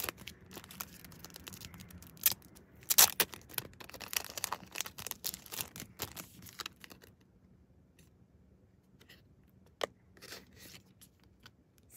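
Paper packaging of a random trading-card pack being handled and torn open: crinkling, tearing and sharp ticks, busy for the first several seconds, then quieter with a few scattered clicks.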